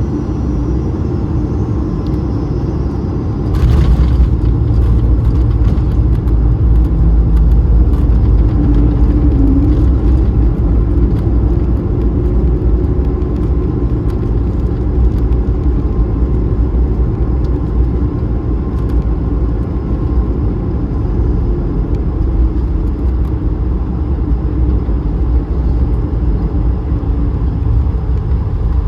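Cabin noise of an Airbus A220 airliner landing: a steady rumble, then about four seconds in a sudden thump as the main wheels touch down. After it comes a louder low rumble of the roll-out along the runway, with light rattles.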